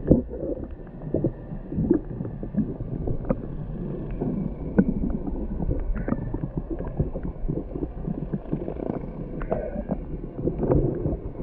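Underwater sound of a chatterbait-style bladed jig being retrieved past a submerged camera: a steady low rush and rumble of water with many small irregular clicks and knocks.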